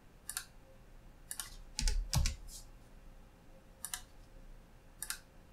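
Computer mouse clicks, about half a dozen single clicks spaced irregularly, with a heavier pair about two seconds in.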